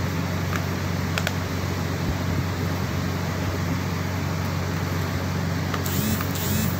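Steady low background hum with a few faint handling clicks. A short crinkle of plastic packaging comes near the end.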